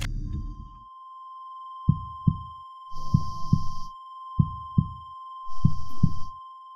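Heartbeat sound effect: pairs of short low thumps repeating about every 1.3 seconds, over a steady high-pitched tone. A low rumble stops within the first second, and two short bursts of hiss come in the middle.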